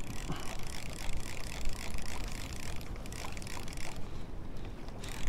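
Penn 712 spinning reel being cranked steadily on the retrieve, its anti-reverse pawl clicking rapidly with each turn of the handle; an old reel that runs noisily rather than smoothly.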